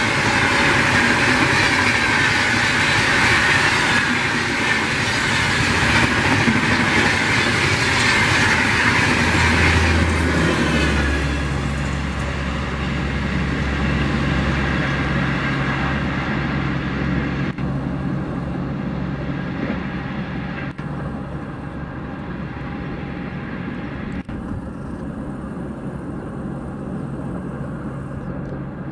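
LHB passenger coaches of a Rajdhani Express running past at speed, with loud rolling and rushing noise. The noise fades from about ten seconds in as the end of the train draws away, leaving a steady low hum.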